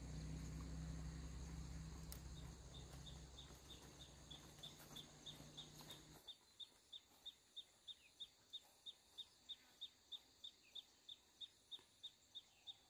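Faint, high chirping call repeated evenly about three times a second from a small animal. Under it, a low hum cuts off abruptly about six seconds in.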